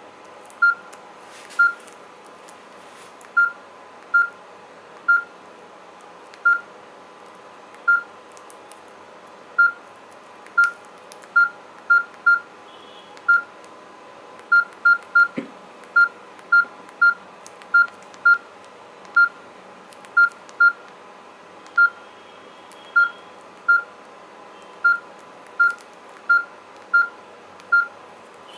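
Samsung Guru 1200 (E1200) keypad tones: short beeps all of the same pitch, one per key press. They come at irregular intervals, sometimes in quick runs of two or three.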